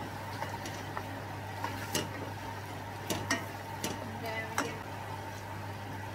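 A wooden spoon stirring a thick pesto sauce with chicken and prawns in a stainless steel pan over a low sizzle. The spoon knocks against the pan several times in the middle few seconds, and a steady low hum sits underneath.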